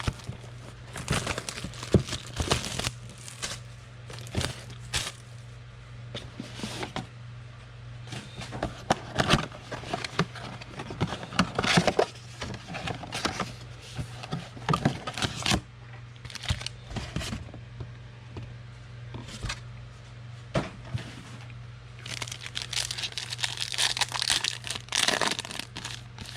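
Trading card packs being torn open: foil wrappers crinkling and tearing, with irregular crackles as the cards are handled, over a steady low hum.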